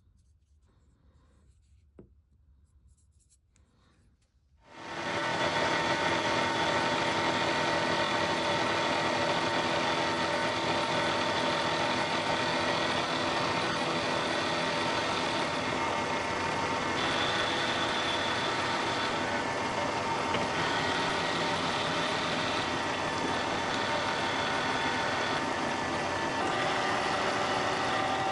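Faint rubbing and handling sounds, then about five seconds in a milling machine starts abruptly and runs steadily, a loud machine hum with several steady tones, while the aluminium vise-jaw blocks are machined to size.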